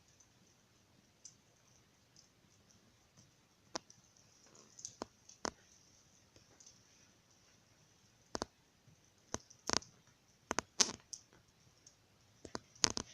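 Sharp, irregular plastic clicks and taps from a cat batting at plastic cable ties. The first few seconds are quiet, then about a dozen clicks come, some in quick pairs, most of them in the second half.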